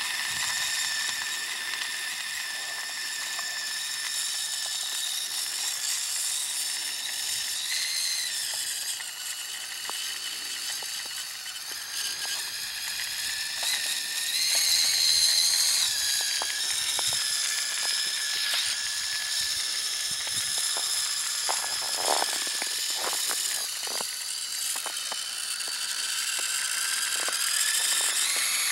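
Radio-controlled snowmobile built from Traxxas parts, its motor and drivetrain whining in several high pitches that rise and fall as it speeds up and slows, with a few short knocks about two-thirds of the way through.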